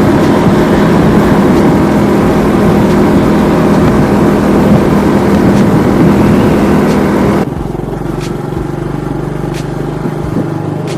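A motor vehicle engine running steadily. About seven seconds in, the level drops abruptly to a quieter, steady engine sound.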